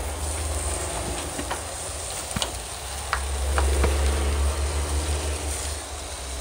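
Steak sizzling on a gas grill, over a steady low rumble, with a few light clicks in the middle.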